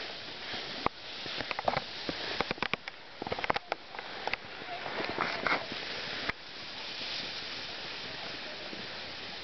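Rushing noise of skiing downhill, with wind on the microphone and skis sliding on snow, and a run of scattered clicks and knocks. About six seconds in the noise drops abruptly and goes on at a steadier, lower level.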